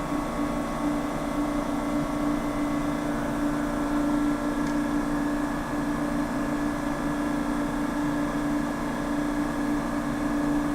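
Steady machinery hum: a constant low drone with a held tone, unchanging throughout.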